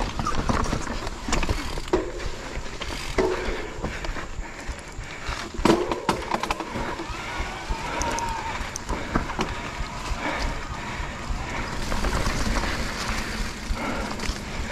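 Mountain bike riding a rough dirt singletrack: tyres rolling over roots and rocks, with frequent knocks and rattles from the bike and a steady low rumble.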